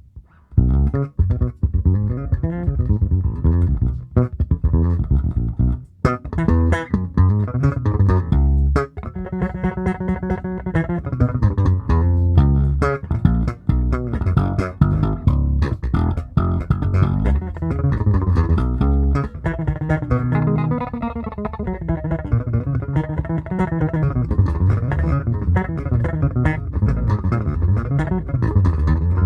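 Electric bass played through a TC Electronic SpectraComp compressor after a Magellan preamp, into a Hartke TX600 head and Fender Bassman Neo 1x15 cabinet: a busy line of plucked notes with sharp attacks, with one held note about ten seconds in.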